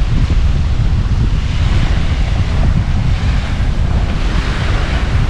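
Wind buffeting the microphone with a heavy, constant low rumble, over small waves washing on the beach that swell up twice.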